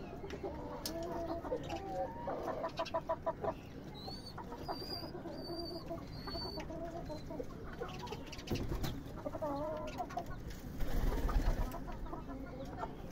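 Domestic pigeons calling in their loft: low coos and a quick run of pulsing calls, with a few high chirps from another bird in the middle.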